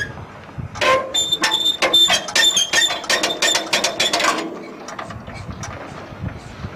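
Two-cylinder Petter PH2 diesel being spun over by hand with its starting handle: a rapid run of metallic clicking and clatter with a thin high tone over it, lasting about three and a half seconds before easing off. The engine does not fire.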